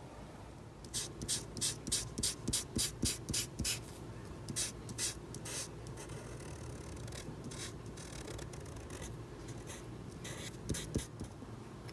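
A colouring tool stroking back and forth on paper: quick, repeated strokes at about two to three a second for a few seconds, then a softer steady rub, with a few more strokes near the end.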